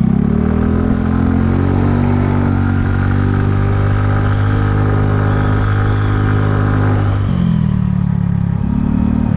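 Kymco People 250 scooter's single-cylinder engine running under way. It picks up in pitch at the start, holds a steady speed, eases off about seven seconds in, then picks up again near the end. Its exhaust leaks are sealed with JB Weld high-heat epoxy, and it sounds quiet.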